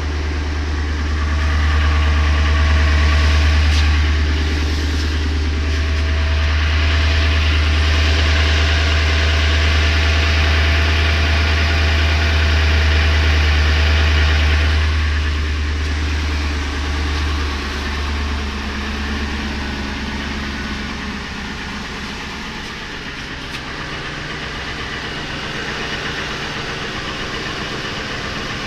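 Ford 5.4-litre two-valve V8 running steadily at idle with a deep hum, carrying a noise the owner cannot place and asks whether it is piston slap. About halfway through the sound gets somewhat quieter.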